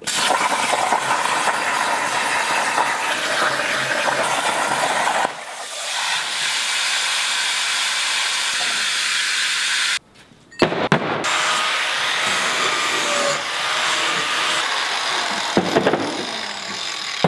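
CNC plasma cutter torch cutting steel plate: a loud, steady hiss of the cutting arc and air jet that cuts off suddenly about ten seconds in. After that come a few sharp knocks and a steady scraping noise as the cut steel disc is worked by hand.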